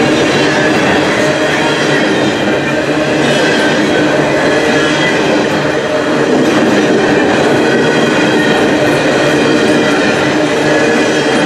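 Coal train cars rolling past at speed: a steady rumble and clatter of steel wheels on the rails, with a faint steady whine from the wheels over it.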